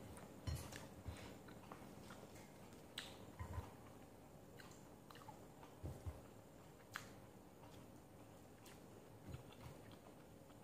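Faint chewing of chicken with scattered small clicks and soft taps as the meat is pulled apart by hand.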